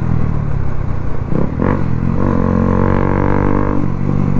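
Motorcycle engine running through an aftermarket Akrapovic exhaust with the dB killer removed, giving a loud droning note. About halfway through it climbs slightly in pitch for about a second and a half as the bike accelerates, then settles back.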